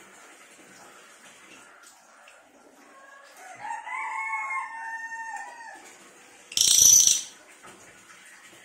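A rooster crows once, a drawn-out call of about two and a half seconds, over a steady faint hiss. Then comes a short, loud, shrill high-pitched bird call, the cililin of this master recording.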